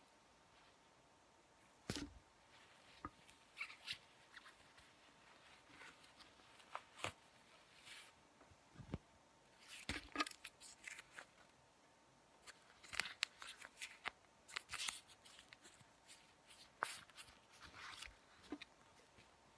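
Faint handling noises of a plastic-covered gel pack and a fabric sock being worked by hand: scattered light clicks and rustles, bunched in a few busy spells.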